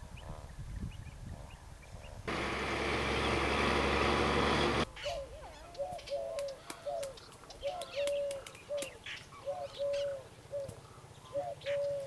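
Eurasian collared dove (ring dove) cooing: a run of short coos, repeated over and over from about five seconds in, with small birds chirping faintly high above. Before that, a loud rushing noise lasts about two and a half seconds and cuts off suddenly.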